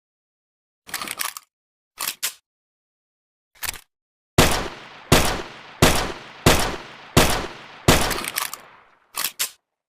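Makeshift M1911 pistol sound effect. A few sharp mechanical clicks and clacks of gun handling come first, then six shots about 0.7 s apart, each with a fading tail, then another short pair of clicks. The gaps between the sounds are dead silent.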